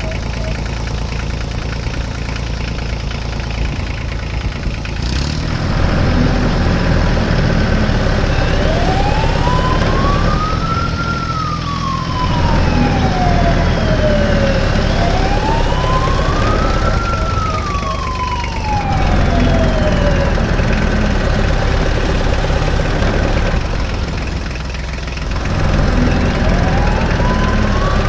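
A siren wailing in slow rising and falling sweeps, each about six seconds long, over a steady low engine rumble. The siren starts about eight seconds in, stops around twenty seconds and starts again near the end.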